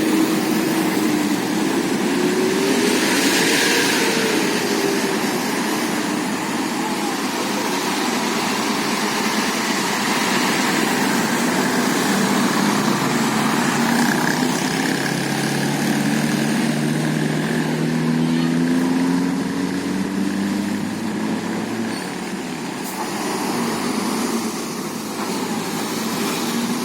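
Tour bus engine running, its pitch rising and falling slowly as it drives, with a brief hiss about three seconds in.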